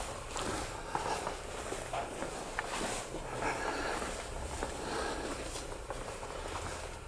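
Footsteps on pavement, about two steps a second, over a steady low hum of background noise.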